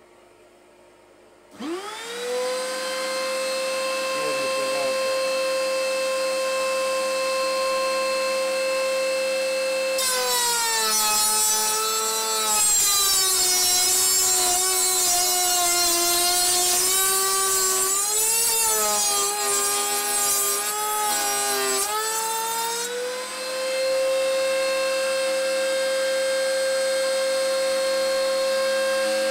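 Wood router mounted in a router table switched on, its motor spinning up to a steady whine about a second and a half in. From about ten seconds in it cuts a piece of wood: the pitch drops and wavers under load with a rough cutting noise, then rises back to the free-running whine just after twenty-two seconds.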